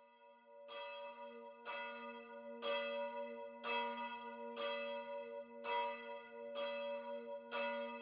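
A single bell tolling, struck about once a second at the same pitch, each stroke ringing on into the next.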